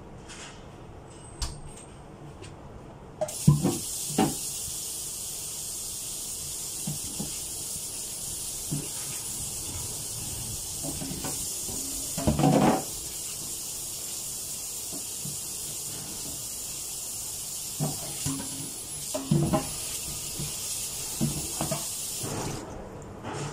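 Water running steadily from a tap, turned on suddenly about three seconds in and shut off shortly before the end. Scattered knocks and clatters of items being handled under it.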